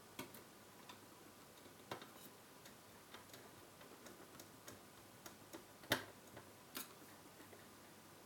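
Faint, irregular clicks and taps of a screwdriver, tweezers and small screws on metal as a circuit board is screwed into a car radio's chassis. The loudest click comes just before six seconds in.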